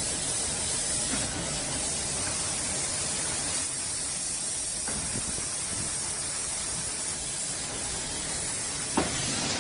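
Five-brush automatic car wash machine running, with a steady hiss of water spraying. A single short knock comes about nine seconds in.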